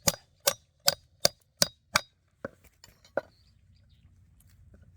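Knife being struck through a thick kudzu root to split it: six quick metallic knocks with a brief ring, about three a second, then a few softer knocks.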